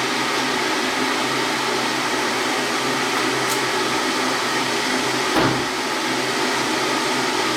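Electric water heater running steadily with a rushing hum as it heats water towards the boil. A single knock about five seconds in.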